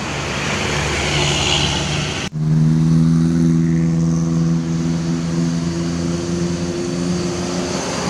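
Intercity coach buses passing close: first a coach going by with engine and tyre noise, then, after an abrupt cut, another coach's diesel engine running with a steady, unchanging drone as it comes past.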